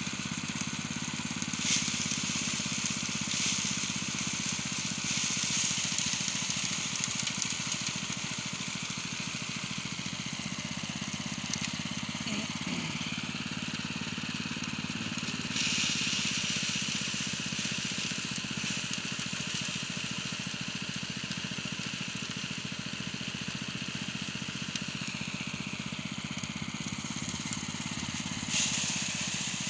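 A small engine running steadily, under a rushing hiss that swells for a few seconds at a time.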